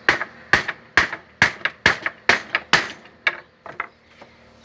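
Hammer blows driving a fastener into a wooden plank: seven hard, even strikes about two a second, then a few lighter taps near the end.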